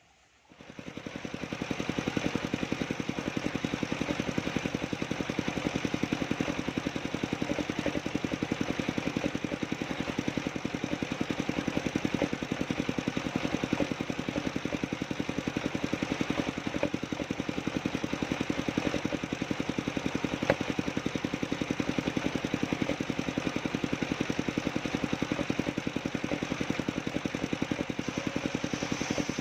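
Engine of a homemade sawmill machine starting up about half a second in, then running steadily with a fast, even pulse.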